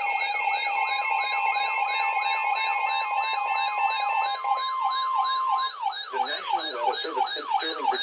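Several NOAA weather radios sounding their alert alarms at once for a special marine warning. Fast repeating siren-like sweeps, a higher warble and beeps overlap, and the steady 1050 Hz Weather Radio warning tone holds for about five seconds in the middle.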